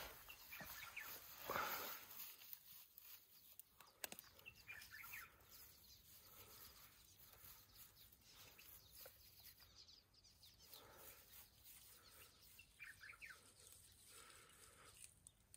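Quiet outdoor background with small birds chirping faintly now and then, and a couple of brief rustling swells in the first two seconds.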